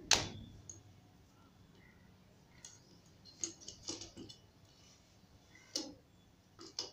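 Scattered clicks and clacks from a YUNTENG VCT 1688 tripod being handled and adjusted, its legs and centre column clicking as they are moved and set down. A sharp click right at the start is the loudest, followed by a few lighter clicks spread through the rest.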